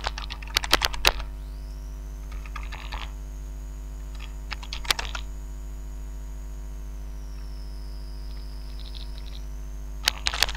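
Computer keyboard keys clicking in short scattered bursts as a word is typed, over a steady electrical hum.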